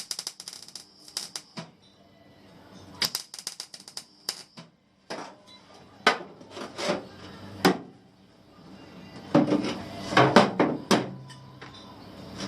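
Welding arc crackling in several short bursts of about a second each, with quiet gaps between: stitch or tack welds being laid on a car's floor panel.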